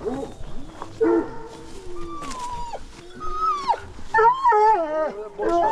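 Hunting hounds baying and whining in a string of long, wavering cries that bend in pitch, the loudest starting about four seconds in.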